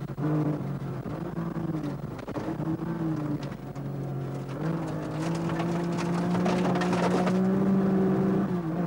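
Rally car engine heard from inside the cabin on a gravel stage. The revs dip and recover a few times in the first half, then climb about halfway and hold high under power before easing off near the end. A rapid clatter of clicks, like loose stones against the car, runs through the high-rev stretch.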